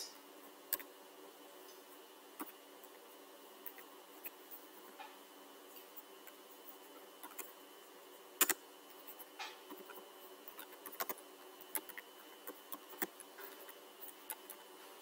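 Computer keyboard keys clicking as a short message is typed: scattered single keystrokes at first, then quicker runs of clicks in the second half, over a faint steady hum.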